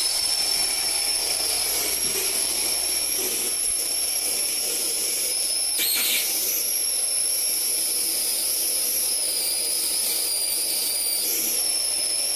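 High-voltage DC arc jumping from a wire tip to a metal sphere, fed by capacitors charged to a little over 12 kilovolts by ions harvested from the air: a steady high-pitched hissing whine, with a brief louder crackle about six seconds in.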